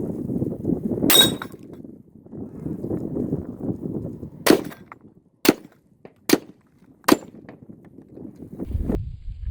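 Rifle shots at a range: one shot about a second in with a ringing tone after it, then four more shots about a second apart.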